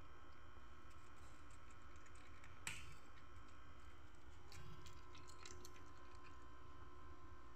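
A cat crunching dry kibble: faint, irregular crisp clicks of chewing, with one louder snap a little under three seconds in and a run of clicks about five to six seconds in. A faint steady hum sits underneath.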